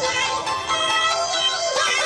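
Background music with an auto-tuned or synthesized singing voice.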